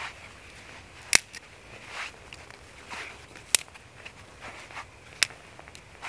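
Dry twigs snapped by hand into kindling, giving three sharp cracks (about a second in, midway and near the end), with the softer rustle of sticks and dry leaves being handled in between.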